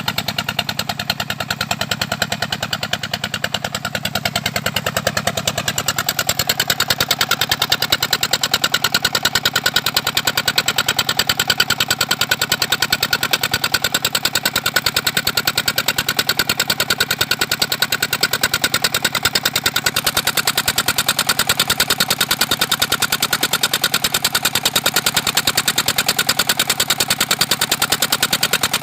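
Small engine of a shrimp-pond sludge suction pump running steadily with a rapid, even firing beat. It picks up slightly about six seconds in.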